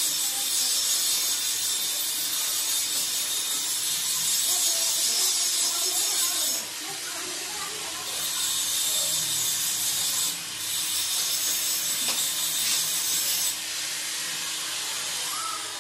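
Electric arc welding on a steel window grill frame: the arc crackles and sizzles in three long runs, with short breaks about six and a half and ten and a half seconds in, then stops a couple of seconds before the end.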